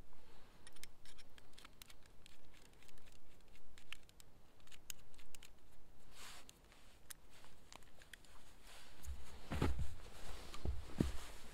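Small metal clicks and light scraping as a Lewis auger drill bit is handled and set against a green wooden pole, then heavier knocks and creaking scrapes near the end as the bit is turned by hand into the wood.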